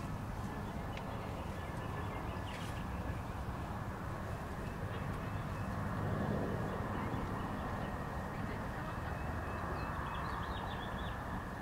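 Outdoor ambience: a steady low background rumble with faint bird calls over it, a quick run of chirps about ten seconds in.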